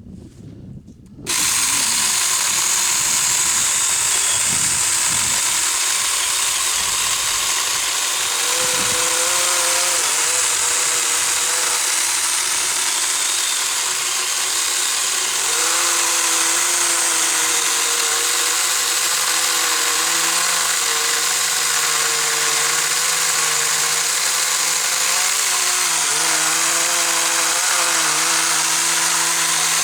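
Saker mini cordless electric chainsaw starting about a second in and running steadily as it saws through firewood too big for its 4-inch bar. Its motor pitch wavers as the load changes.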